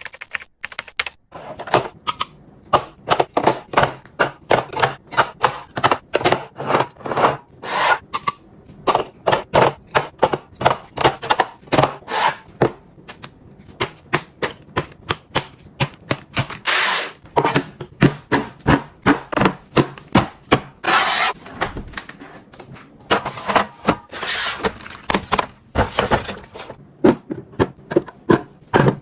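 Rapid, irregular taps, clicks and knocks of containers and food items being handled and set down while a refrigerator is organised, broken by a few longer rustling or scraping sounds.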